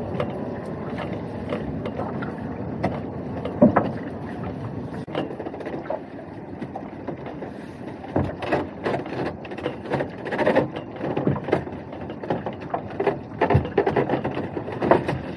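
Steady running noise of a small fishing boat, with one sharp knock a little under four seconds in and a run of knocks and rattles from about eight seconds in as a lobster pot is hauled up over the side.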